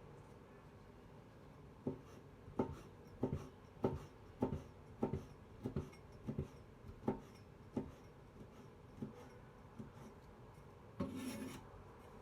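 Kitchen knife slicing orange peel thinly on a cutting board: a steady series of light knocks, one or two a second, starting about two seconds in, with a short scraping rustle near the end.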